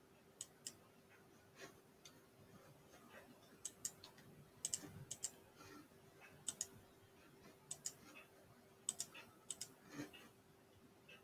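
Faint, scattered clicks of a computer mouse, many coming in close pairs about a fifth of a second apart, over a low steady hum.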